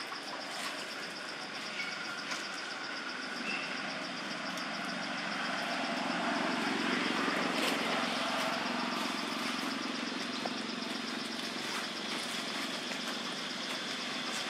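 A motor vehicle engine running steadily, a little louder around the middle, with a high, rapidly pulsing buzz throughout.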